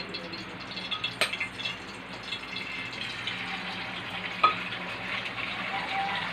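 Scrambled eggs sizzling in a frying pan, with small clicks and scrapes of a spatula against the pan, a sharp click about a second in and a louder knock a little after four seconds.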